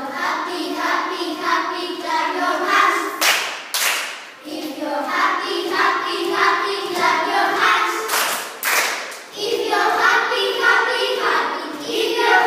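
Group of children singing together, with hand clapping. Two short noisy bursts stand out, about three seconds in and again about eight seconds in.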